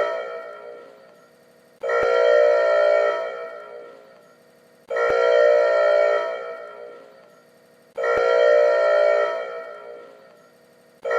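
Factory alarm sounding in repeated blasts about every three seconds. Each blast is a loud, many-toned pitched sound that starts abruptly with a click, holds for about a second, then fades away before the next one begins.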